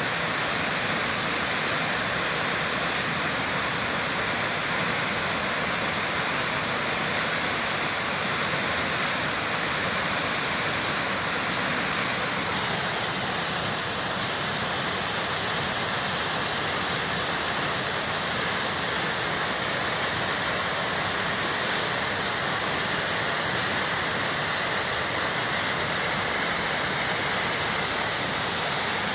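Waterfall rushing steadily, the constant sound of water pouring down, its tone shifting slightly about thirteen seconds in.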